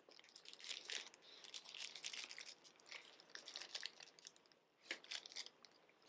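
Plastic wrapper of a chocolate-covered snack cake crinkling and rustling as it is handled, in faint irregular crackles with a short lull about four seconds in.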